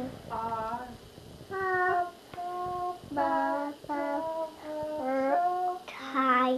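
A young child singing a tune in short separate notes at changing pitches, the words not clear.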